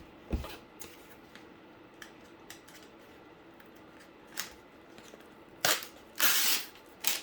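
Cardboard and tools being handled: a knock, a few sharp clicks, and a short scraping rustle near the end.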